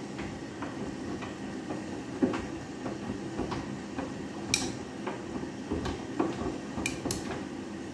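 Front-loading washing machine tumbling dark laundry in a high water level during a rinse: water sloshing in the drum with light knocks throughout. Three sharp clinks stand out, one about halfway and two close together near the end.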